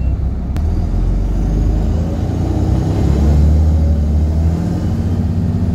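Volvo B7RLE bus's D7C six-cylinder diesel engine running under load, heard from inside the saloon, its pitch rising about two seconds in as the bus picks up speed. The exhaust is blown, giving the engine a loud, rough note. A single sharp click comes about half a second in.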